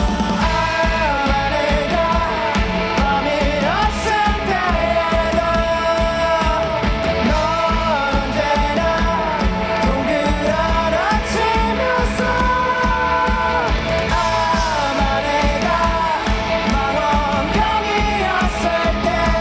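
A rock band playing live: a male voice sings over electric guitar and drums, with a steady beat throughout.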